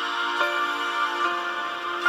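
Background music of held, overlapping notes that change every second or so.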